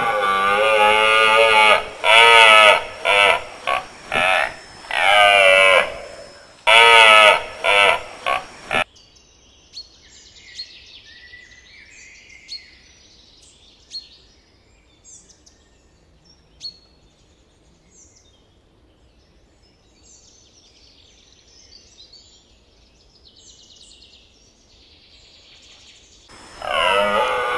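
Red deer stag roaring in the rut: a long drawn-out roar, then a run of shorter grunting roars, stopping about nine seconds in. After that it is quieter, with faint short high calls scattered through, and the roaring starts again near the end.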